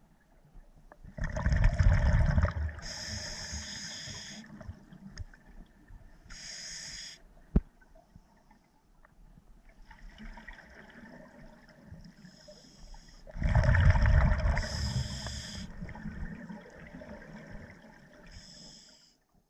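A scuba diver breathing through a regulator underwater: two loud gushes of exhaled bubbles, about a second in and again about thirteen seconds in, with shorter hissing inhalations between them. There is a single sharp click about midway.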